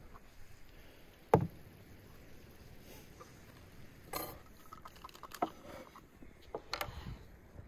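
Scattered clinks and knocks of dishes and a pan being handled on a wooden table, with one sharp knock about a second and a half in, and the clicks of a bottle cap being twisted open near the end.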